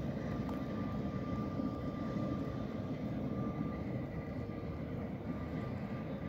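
Tram 5092 rolling away along the track, a steady low rumble that slowly fades, with a faint steady high whine above it.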